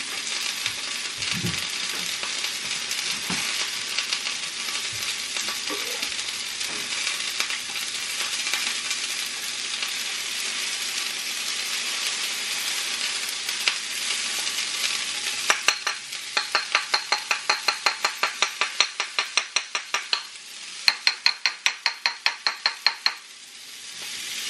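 Broccoli sizzling as it sautés in a frying pan, a steady frying hiss. Past the middle come two runs of quick, regular scrapes or taps of a kitchen utensil, about three or four a second.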